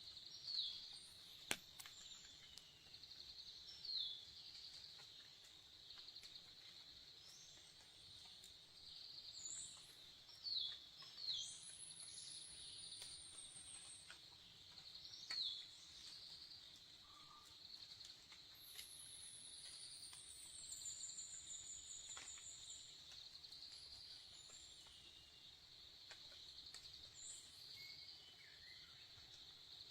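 Faint forest ambience: insects keep up a steady pulsing buzz, while birds give short falling chirps every few seconds and two longer, high falling whistles. A single sharp click comes about a second and a half in.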